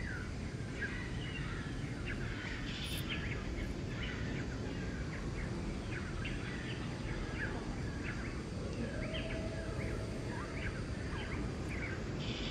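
Many short bird chirps throughout over a steady background rush of outdoor noise. A faint steady hum comes in about eight seconds in.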